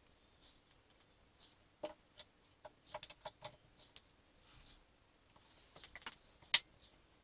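Scattered sharp clicks and light taps of fingers and a screwdriver on the metal chassis of a Behringer Eurorack MX602A mixer as its bottom-panel screws are worked, with a cluster of clicks about three seconds in and the loudest single click about six and a half seconds in.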